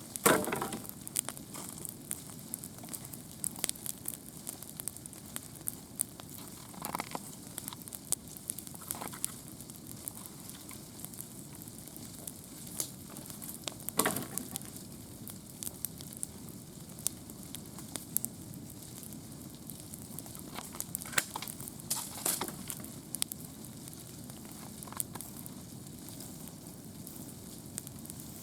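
Wood campfire burning: a steady low hiss with irregular sharp crackles and pops. Louder pops come just after the start, about halfway through, and in a cluster about three quarters of the way in.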